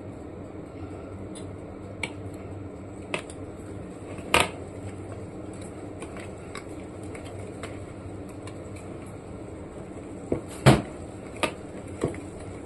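Metal wire whisk stirring thick banana bread batter in a glass bowl, a steady soft mixing sound with several sharp clinks of the whisk against the glass, the loudest about four seconds in and near the end.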